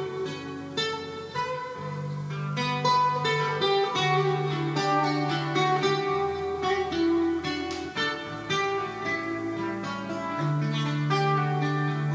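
Instrumental guitar music played back from a Panasonic cassette deck: quick plucked guitar notes over held bass notes, with no singing.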